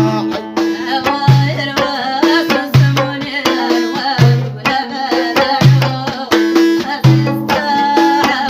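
A recorded song plays: a plucked string instrument carries the melody over hand drums, with a low drum beat about every one and a half seconds.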